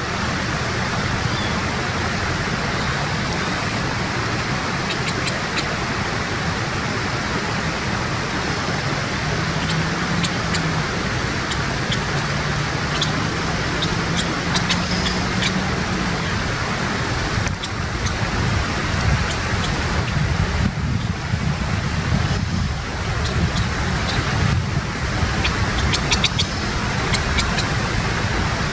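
Steady rushing outdoor background noise, like distant road traffic, with a faint low hum through the middle and a scatter of tiny high ticks.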